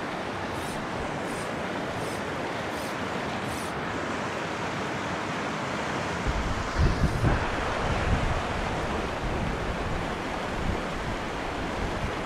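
Shallow creek rushing over rocks and riffles: a steady wash of running water. A few faint high ticks come in the first few seconds, and about six seconds in, wind gusts buffet the microphone with a low rumble for a couple of seconds.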